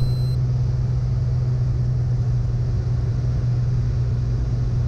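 Cessna Turbo 210's turbocharged six-cylinder engine and propeller droning steadily, heard inside the cabin, with a strong low hum.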